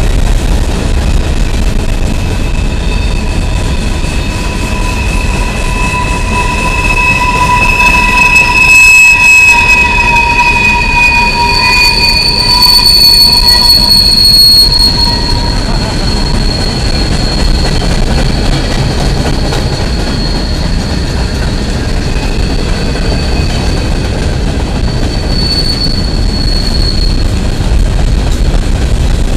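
Empty coal hopper cars rolling past on steel wheels, a steady rumble under high, drawn-out wheel squeals that waver in pitch and come and go, strongest around the middle.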